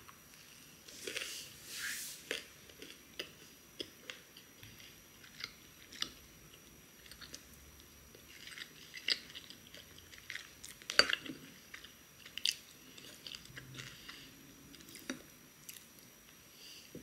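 Close-miked mouth sounds of a person eating fresh strawberries: bites and chewing in short bursts, with small clicks throughout and one sharper click about eleven seconds in.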